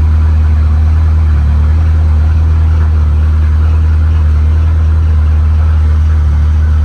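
Freshly rebuilt 2.3-litre turbocharged engine of a 1927 Ford Roadster running steadily at idle just after its first start with new parts, a loud, even, low hum with no revving.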